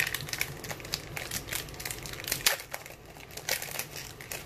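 Foil wrapper of a 2020 Panini Select baseball card pack crinkling and tearing as it is pulled open by hand, a run of sharp crackles with the loudest a little past the middle.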